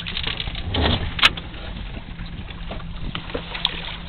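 Boat at sea: a steady low engine hum over water and wind noise, with a loud sharp knock on board about a second in and a smaller one near the end.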